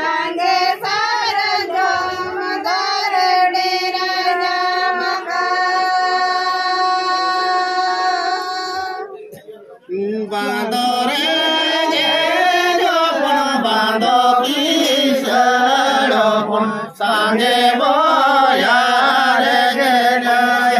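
A group of people singing together in long, held phrases. The first phrase is higher-pitched; after a short break about nine seconds in, a lower-pitched phrase follows.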